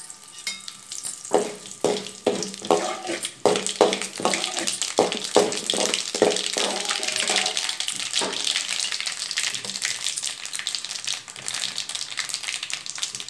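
Curry leaves, mustard seeds and urad dal sizzling in hot oil in an aluminium kadai: a steady frying hiss. A perforated metal ladle stirs through it, scraping and clinking against the pan in quick strokes that die away about two-thirds of the way through.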